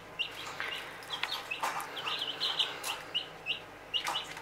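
Young broiler chicks peeping: short, high peeps repeated a few times a second.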